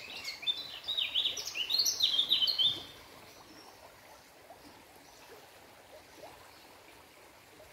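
A bird singing: a quick, busy run of high chirps and short whistles for about three seconds, then only faint outdoor background.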